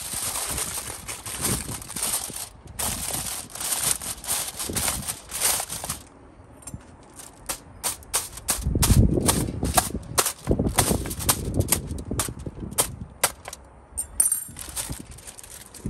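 Aluminium foil crinkling as gloved hands press and fold it over a pan, then a fork punching holes through the foil: a quick series of sharp pops and clicks, with a few low knocks in the middle.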